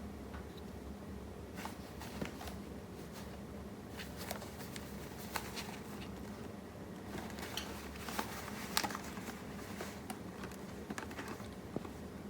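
Scottish Fold kitten grooming itself: faint, irregular small licking clicks and fur rustles over a steady low room hum.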